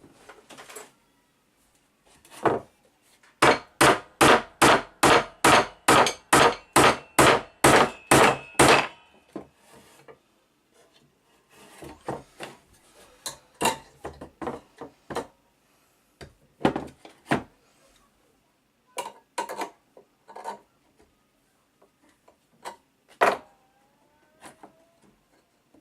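A hammer or mallet striking wood: one blow, then a quick steady run of about sixteen blows at roughly three a second, followed by lighter, irregular knocks and clatter of tools on wood.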